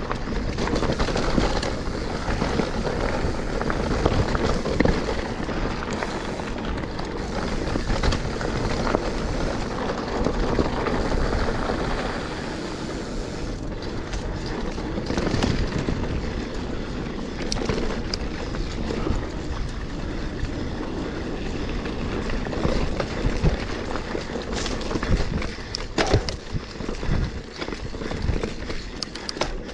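Mountain bike (Specialized Stumpjumper Evo alloy) riding fast down singletrack: steady tyre roar on dirt and rock, with chain and frame rattle and occasional sharp knocks as the wheels strike rocks and roots.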